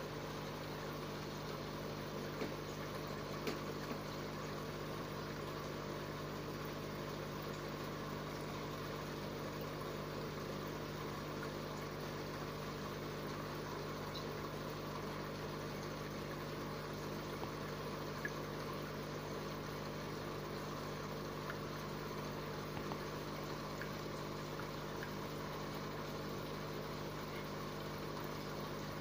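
Steady electric hum of an aquarium pump, with a faint running-water sound and a few small clicks.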